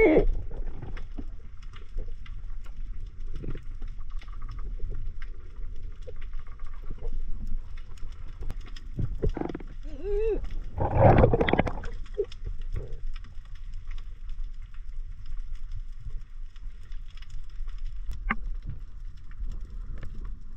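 Muffled underwater sound of a diver's camera: a steady low water rumble with scattered faint clicks, and a louder wavering sound about ten seconds in.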